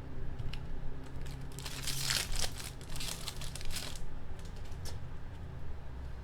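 Trading-card pack wrapper crinkling as it is torn open, a dense burst of crackling from about one and a half to four seconds in, with a few scattered crinkles before and after.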